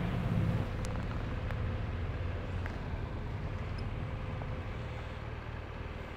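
Steady low engine drone, a little louder in the first second, with a few faint clicks.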